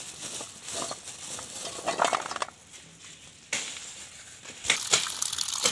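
Ceylon olives (veralu) tumbling out of a plastic bag into a metal basin: hard, round fruit clattering and knocking against the metal and each other. There is a busy run of clatter, a short lull, then more, and a few sharp knocks near the end.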